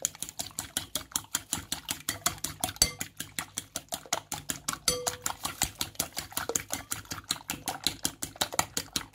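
Metal fork beating raw eggs in a glass bowl, clicking against the glass in a fast, even rhythm of about six strokes a second.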